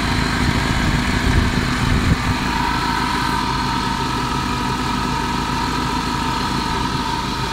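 Mercedes M111 inline-four petrol engine idling under the open bonnet, with a steady whine that comes in about two seconds in. The owner takes the engine to have a blown head gasket: it is overheating and its coolant is boiling.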